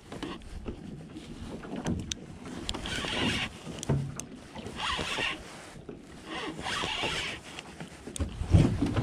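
Water slapping against the hull of a small boat in noisy swells about every two seconds, with a heavy thump near the end.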